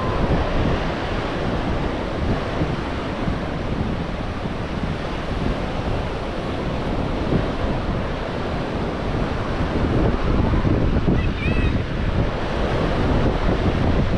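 Ocean surf washing onto the beach, with wind buffeting the microphone in a steady low rumble. A faint, brief high chirping call comes about eleven seconds in.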